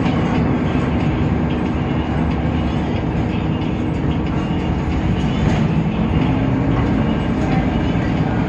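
Temsa Avenue LF city bus's DAF PR 228 diesel engine and ZF automatic drivetrain running with a steady low hum.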